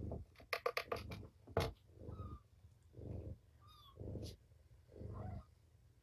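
Mother cat purring in slow low pulses about once a second while her kittens nurse. A quick cluster of sharp clicks comes about a second in, and there are a few faint high squeaks.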